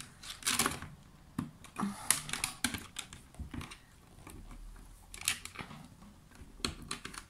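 Irregular light clicks and taps of fingers, fingernails and craft wire against the plastic pegs and pegboard of a Happy Jig wire-bending jig as wire is worked around the pegs, with a few brief scraping rustles.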